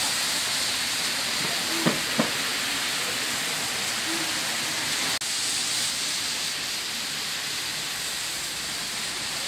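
Steady hiss of rain falling on a wet street, with two short sharp sounds just before and after two seconds in.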